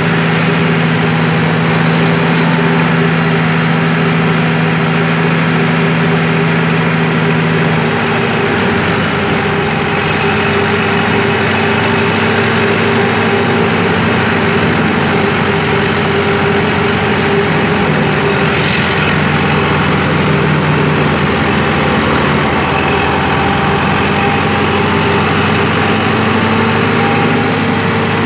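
Tractor-driven wheat thresher running while straw is fed in: a loud, steady engine and machine drone whose low tone drops out about eight seconds in and comes back later.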